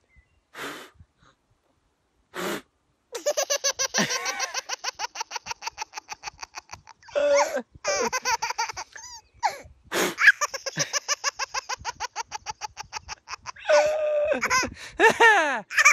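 A baby's belly laughter: long runs of rapid, high-pitched bursts, about five or six a second, starting about three seconds in and broken by a few short pauses.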